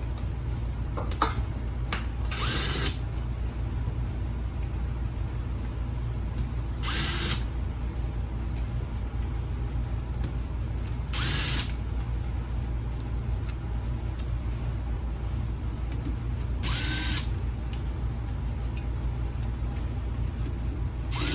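Electric screwdriver backing out the small screws of a car navigation unit's lower plate: four short whirs a few seconds apart, some rising in pitch as they end. Small handling clicks fall between them over a steady low hum.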